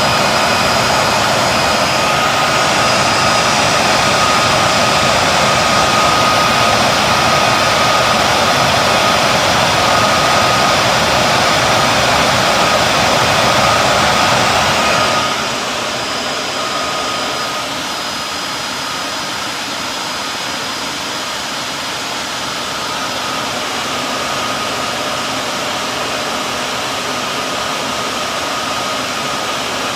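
Dell PowerEdge M1000E blade chassis cooling fans running loudly with a steady rushing noise and a faint whine. About halfway through, the noise drops suddenly to a lower steady level as the fans slow down after start-up.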